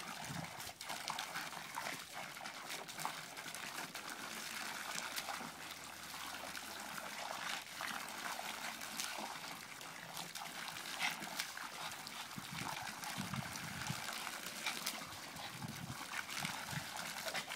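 A garden hose's stream splashing steadily into a water-filled galvanized tub and onto grass, with small irregular splashes and dog noises as a small dog bites at the water.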